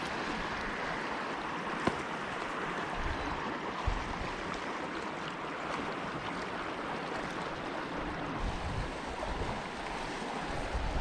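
Trout stream running, a steady rushing of water, with two light knocks about two and four seconds in.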